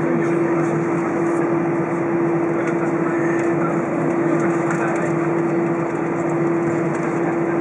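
Airbus A320 cabin noise on the ground: a steady rush of engine and air-conditioning noise, with a constant low hum running under it.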